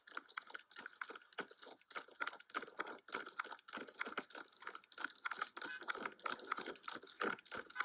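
A police body camera's microphone picking up an officer running on foot: a quick, even rhythm of rustling and rattling from clothing and duty gear with each stride.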